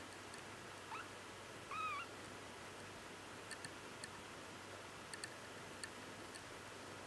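Week-old Bengal kitten mewing twice, a short rising squeak about a second in and a louder wavering cry just after: the cry of a nursing newborn, eyes not yet open, that has lost her place at the teat. Faint scattered ticks around it.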